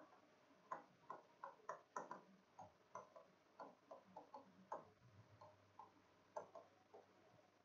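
Faint, irregular tapping and clicking of a stylus on an interactive display panel as words are written, two or three small clicks a second.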